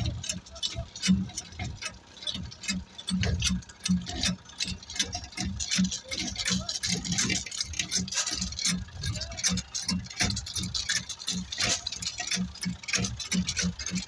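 Road surface-dressing work: dense, irregular clicking and pattering of loose stone chips, with low thuds mixed in.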